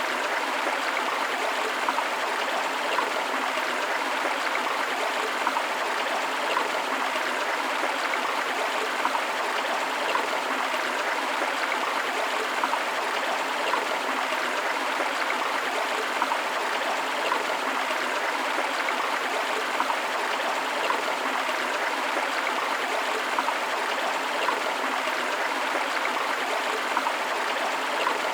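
Forest river flowing with a waterfall, a steady dense rush of water with small splashes and gurgles throughout.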